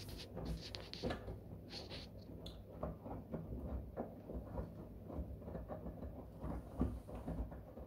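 Miele WKR570WPS front-loading washing machine tumbling a load of dark clothes in soapy water: sloshing and irregular soft thuds of wet laundry falling as the drum turns, over a low rumble.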